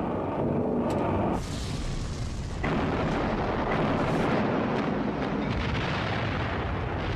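A steady propeller aircraft engine drone for about the first second, giving way to a dense, continuous noise of explosions and gunfire from a warship under air attack.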